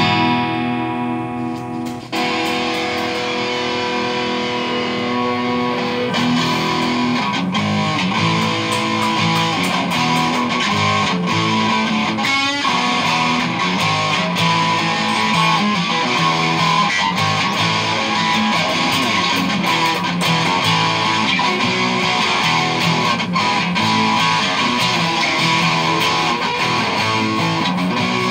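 Acoustic-electric guitar played through an amplifier: a chord rings out for about two seconds, then continuous picked melody and chords.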